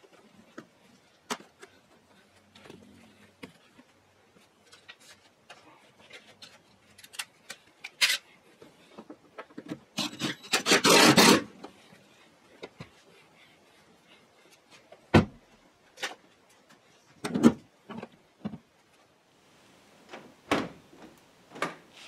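Hands working on the plastic interior trim of a 2004 Honda Civic. Scattered light clicks and knocks, a scraping rub lasting about two seconds near the middle, and several sharp single knocks in the second half.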